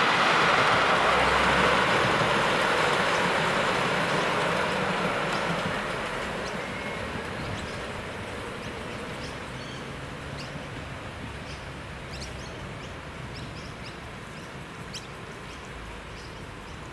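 A miniature live steam train, a model of a NSW 36 class locomotive hauling a goods train, running along the track. Its rolling noise fades steadily as it moves away, with a few faint ticks in the second half.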